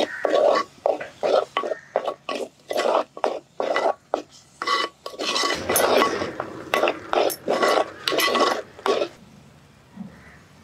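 Wooden spatula scraping and stirring green coconut paste around a black clay pot, in quick repeated strokes of about two a second. The stirring stops about nine seconds in.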